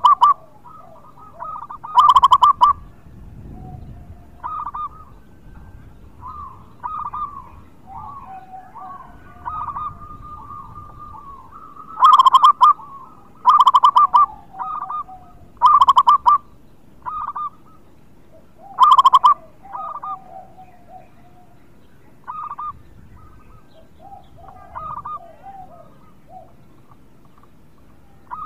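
Zebra dove (perkutut) singing its cooing song: loud, fast-pulsed phrases about a second long, coming twice near the start and four times between about 12 and 19 seconds in, with softer cooing between them.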